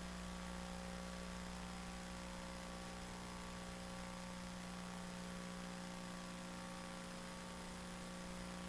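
Steady electrical mains hum with a faint even hiss from the microphone's sound system, unchanging throughout.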